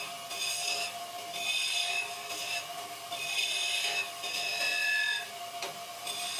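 A hand tool working wood in repeated scraping strokes, each about half a second to a second long, roughly one a second, with a ringing, rasping edge.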